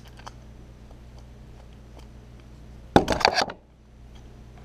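Screwdriver turning out the screws of a plastic extension-cord replacement plug, with a few faint clicks, then about three seconds in a short clatter of hard plastic and metal as the plug is taken apart.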